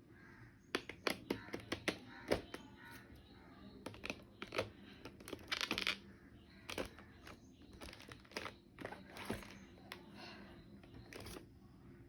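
Faint handling of gift packaging: scattered sharp clicks and taps mixed with crinkling and rustling, in irregular clusters.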